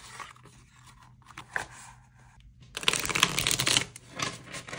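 Deck of printed game cards being shuffled by hand on a table: a few soft handling clicks, then a fast crackling riffle lasting about a second, about three seconds in.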